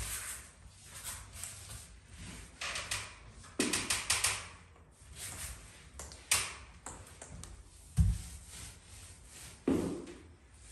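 Small paint roller rolling wet paint over a wall in irregular strokes, with scattered taps and clicks and a dull thump about eight seconds in.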